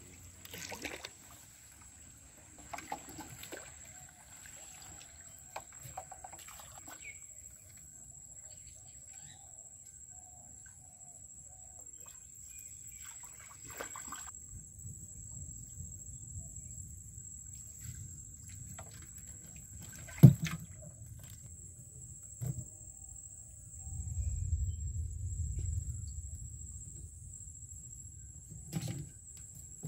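Knocks on a wooden boat and handling noise as a bamboo fish trap is hauled out of a weedy pond and set on the deck; the loudest is a sharp knock about two-thirds of the way through. Chickens cluck faintly in the background, over a steady high whine.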